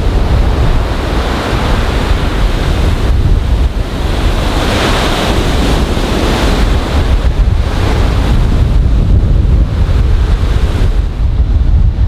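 Strong wind buffeting the microphone with a constant low rumble, over surf breaking and washing up a sandy beach. The wash of a wave swells loudest about halfway through.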